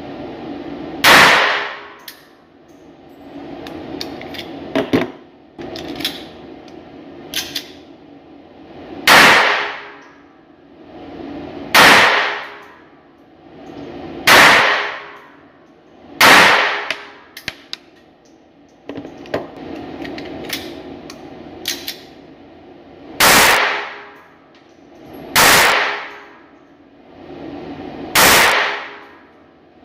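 Gunshots from a small handgun, fired one at a time on an indoor range: about eight loud sharp cracks a few seconds apart, each ringing briefly off the walls, with fainter pops and clicks in between.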